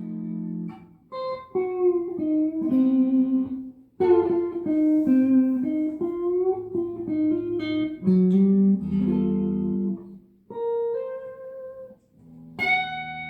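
G&L CLF Doheny V12 electric guitar played with a clean tone: melodic single-note phrases and held chords, with brief pauses about four, ten and twelve seconds in.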